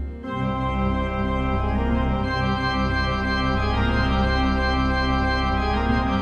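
Soundtrack music of held, organ-like chords over a steady low drone.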